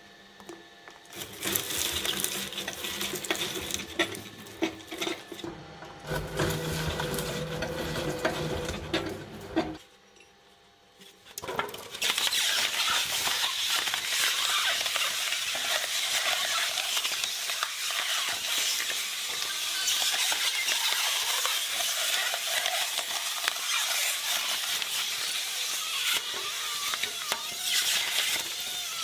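Shredder chewing through material with irregular crackling and clicking. Near the middle it goes briefly quiet, then a long, dense, steady crackle follows.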